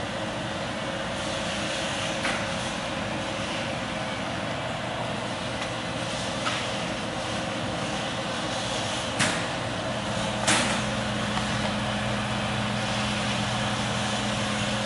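Steady machinery noise with a low hum that grows stronger about two thirds of the way through, broken by four sharp clicks or knocks.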